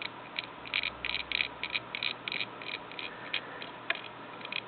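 Soldering iron tip dragged along the fluxed pins of a fine-pitch SMD chip, giving irregular small crackles and ticks, several a second, as the flux and solder work under the hot tip.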